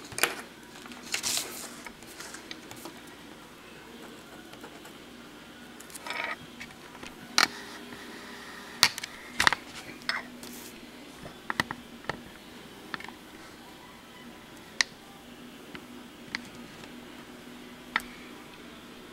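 Irregular clicks, knocks and short rustles of handling noise from the handheld camera and the sheet of paper on the desk, over a faint steady hum.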